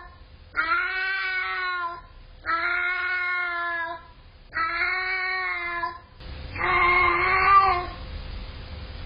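Long-haired cat yowling: four long, drawn-out calls of even pitch, about a second and a half each with short pauses between, the last one louder and rougher.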